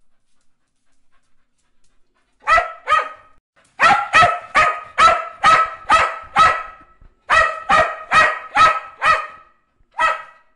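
A dog barking, starting about two and a half seconds in. Two barks, then a fast run of about eight at roughly three a second, a short pause, four more, and a single bark near the end.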